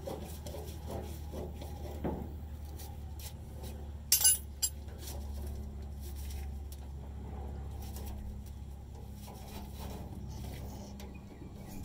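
Hands handling the metal fuel lines and hose clamps give light clicks and rubbing, with a few sharp metallic clinks about four seconds in. A steady low hum runs underneath.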